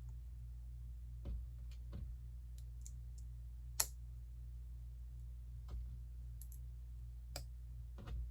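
Plastic Lego bricks clicking and tapping as pieces are handled and pressed together, scattered sharp clicks every second or so with one louder click about midway, over a steady low hum.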